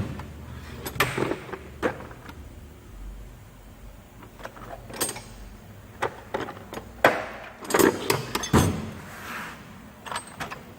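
Metal tool box drawers sliding and shutting, with tools clinking inside: a series of separate clacks and knocks, the loudest cluster about seven to nine seconds in.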